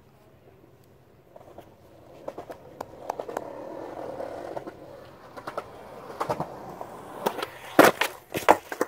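Skateboard wheels rolling on concrete, growing louder as the board approaches, with scattered clicks. Near the end comes the sharp pop of the tail striking the ground for an ollie, the loudest sound, followed by several clattering impacts as the board and rider come down hard in a fall.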